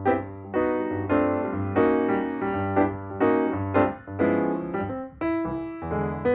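Background music: piano or electric keyboard playing chords over a steady bass line, a new chord about every half-second.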